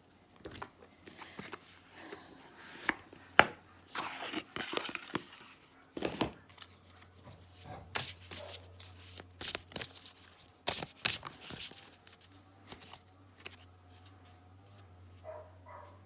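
Tarot cards being handled: rustling and sliding, with a run of sharp taps and slaps as cards are picked up and laid down, busiest near the middle.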